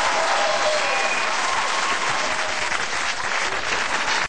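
Studio audience applauding with some cheering, at a steady level, cutting off abruptly at the end.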